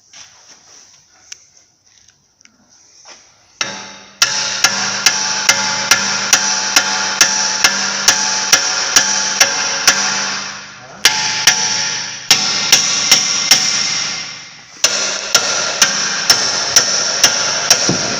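Impact wrench hammering away at a large seized suspension-arm bolt in runs of several seconds, starting about four seconds in, with brief stops between runs and sharp regular strikes a few times a second on top.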